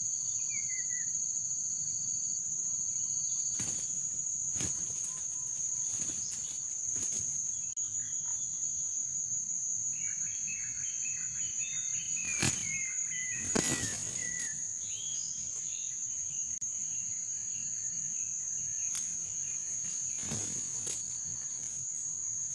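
Insects droning on one steady high pitch. A second, lower drone stops a few seconds in. Scattered sharp clicks and knocks are heard, and a descending run of high chirps comes around the middle.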